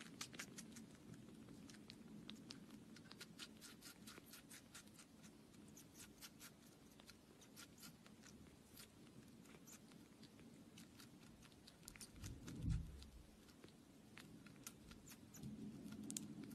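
Kitten suckling at a feeding syringe: faint, quick little clicks of its mouth and tongue, with one soft low thump about three quarters of the way through.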